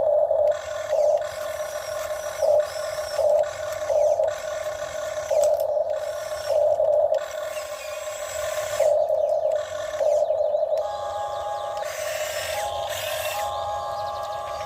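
Huina RC excavator's small electric motors whining, swelling and easing in pulses about once a second as the machine works. In the last few seconds the whine is joined by broader noise and a second, higher steady tone.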